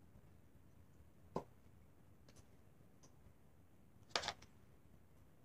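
Near silence: quiet room tone with a few faint clicks, the loudest a short double click about four seconds in.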